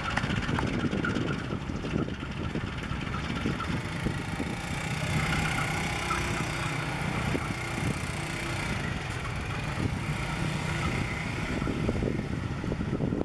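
Diesel locomotive engine running as the train rolls slowly into a station, a continuous low rumble with a steadier engine note in the middle seconds.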